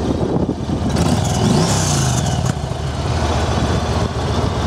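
Yamaha Stratoliner's 1854cc air-cooled V-twin running at idle, with a brief rise and fall in pitch about a second in.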